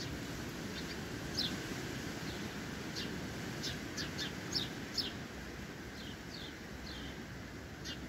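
Sparrows chirping: a dozen or so short chirps, each dropping in pitch, bunched in the middle, over a steady low background rumble.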